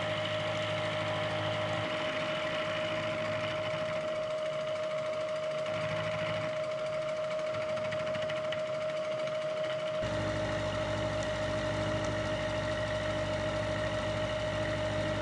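Vertical milling machine cutting a block of scrap steel with an end mill, running steadily with a constant whining tone. About ten seconds in, a deeper steady hum joins it.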